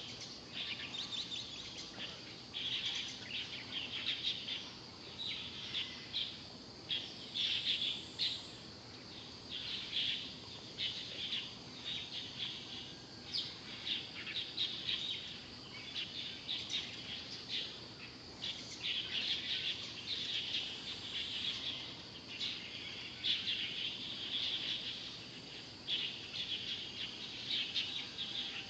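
Small birds chirping and twittering, many short high chirps overlapping in an irregular, continuous chorus over a faint outdoor hiss.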